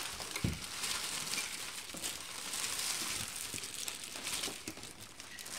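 Thin plastic produce bags crinkling as they are handled and pulled open, with a soft knock about half a second in.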